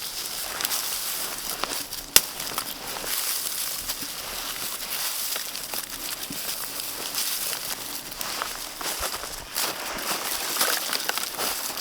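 Campfire of dry wood crackling, with many small snaps and one sharper pop about two seconds in.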